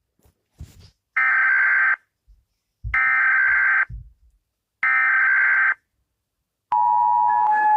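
Emergency Alert System alarm: three harsh, screeching digital data bursts about a second long each (the SAME header), then a loud, steady two-tone attention signal beginning near the end.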